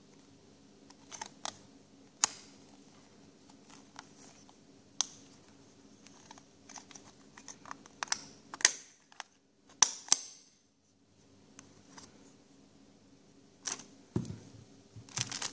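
Hard plastic phone case and belt-clip holster being handled: scattered clicks and snaps as parts are pressed and fitted, several sharp ones close together near the middle, over a faint steady low hum.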